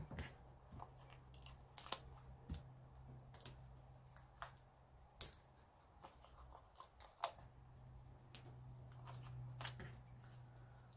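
Scattered faint clicks and rustles of paper and card being handled as foam adhesive Dimensionals are peeled from their backing sheet for a paper sentiment, over a low steady hum.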